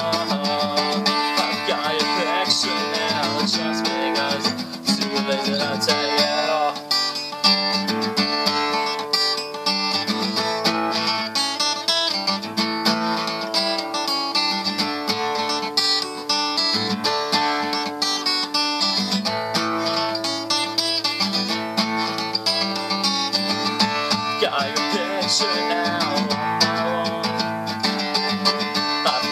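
Instrumental stretch of a pop-punk demo song: guitar-led band music with strummed guitars and no vocals.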